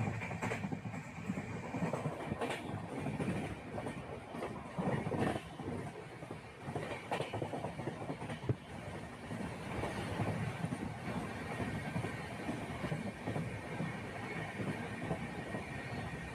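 Steady rumble and rattle of a moving vehicle, with irregular faint knocks.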